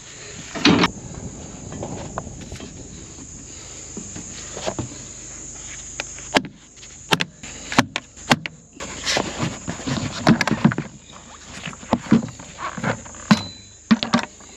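Scattered knocks and clicks of hands-on work around a combine, over a steady high-pitched insect drone that drops out briefly about six seconds in.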